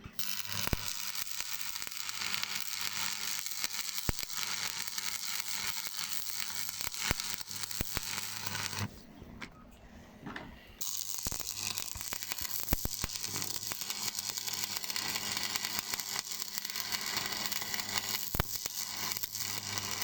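Stick-welding arc crackling and sizzling as the flux-coated electrode burns, with many sharp pops and a low hum underneath. It comes in two runs of about nine seconds each, with a break of about two seconds between them.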